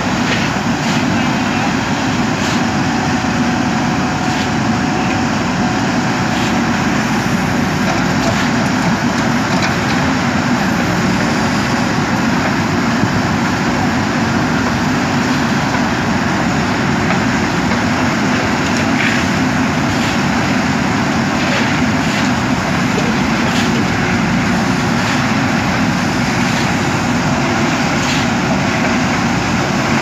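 JCB 3DX backhoe loader's diesel engine running steadily under load as the backhoe arm digs soil, with a few faint knocks now and then.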